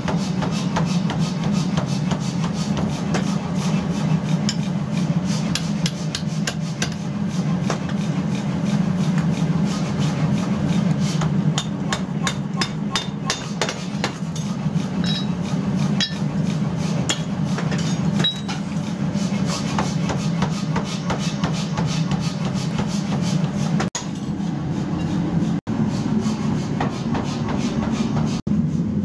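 Hammer blows striking iron being forged, coming in a fast irregular series over a steady low machine hum, with a few brief breaks near the end.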